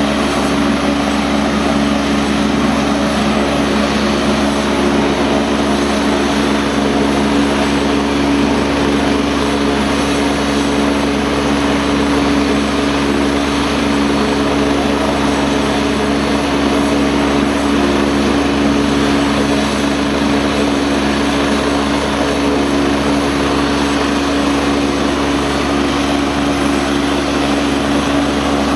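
Twin-turbine AgustaWestland A109 helicopter running on the ground with its rotors turning before takeoff: a steady engine whine and rotor drone that holds level throughout.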